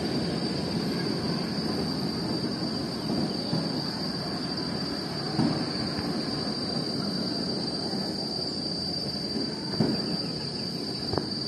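Luge cart rolling down a concrete track: a steady rolling rumble from the wheels, with a few short knocks near the end, over a steady high-pitched whine.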